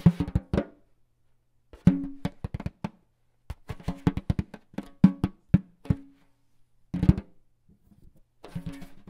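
Percussion music: quick clusters of sharp drum strikes that ring at a couple of low pitches, broken by short pauses.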